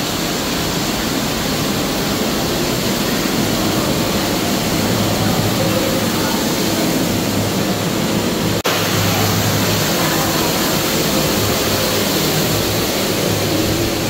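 Steady rushing of shallow water flowing down a sloped walkway, an even, loud wash of water noise, with one abrupt break about eight and a half seconds in before it carries on.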